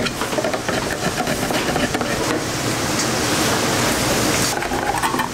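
Hand-held lever can opener cutting around the lid of a large tin can: a quick run of short metallic clicks and crunches, over a steady rushing noise that is strongest in the middle.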